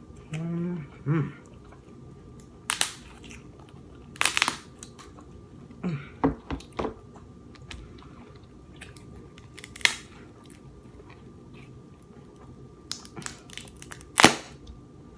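King crab legs being cracked open and eaten: a string of sharp shell cracks and snaps between bouts of chewing, the loudest crack about fourteen seconds in.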